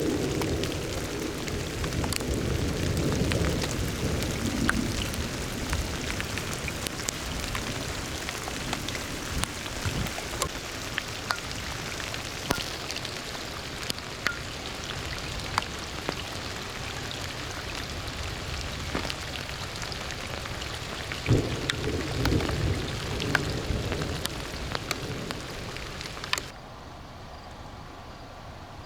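Thunderstorm: steady heavy rain with many sharp ticks of drops striking a hard surface, and low thunder rumbles near the start and again about two-thirds of the way through. Near the end the sound drops suddenly to a quieter hiss.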